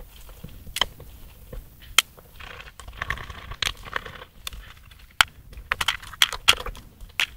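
Small metal clicks and clinks as a screwdriver backs out tuner screws and the tuners are pulled off a guitar headstock, with a scratchy, rasping stretch a few seconds in. A steady hiss runs underneath.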